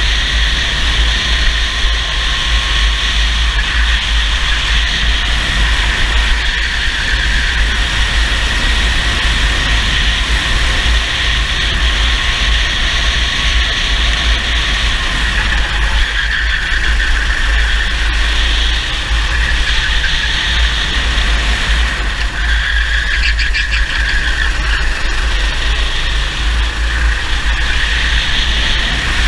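Racing kart engine at speed, recorded onboard, its note dipping and rising as the kart brakes and accelerates through the corners, over a constant low rumble of wind on the microphone.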